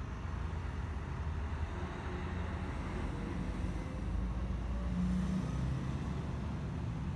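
Distant road traffic rumbling steadily, with a faint engine hum swelling about five seconds in.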